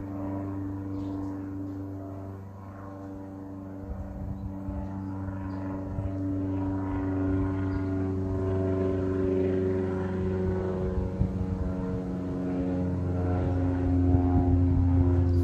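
Propeller airplane's engine droning overhead, a steady pitched hum that drifts slightly in pitch and grows louder toward the end.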